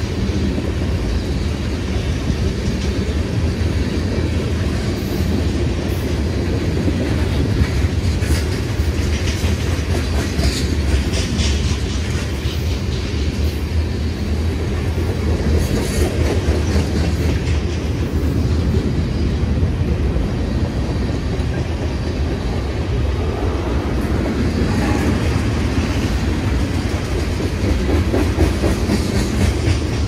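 Loaded tank cars of a freight train rolling past close by: a steady rumble of steel wheels with clickety-clack over the rail joints and scattered sharp high clicks and squeaks from the wheels and couplers.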